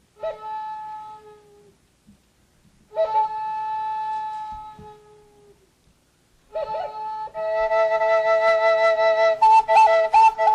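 Wooden Native American-style flute played solo: two short held notes with pauses between, then from about six and a half seconds a longer sustained passage, with quick note changes near the end.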